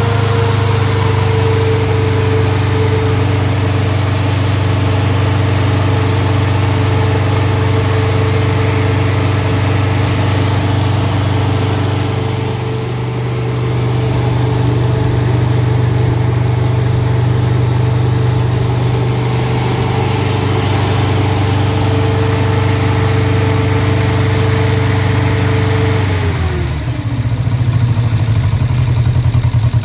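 Ford 1.6-litre four-cylinder engine with a Holley Sniper EFI throttle body idling steadily. About 26 seconds in, the idle speed drops and the running turns into a slower, pulsing beat.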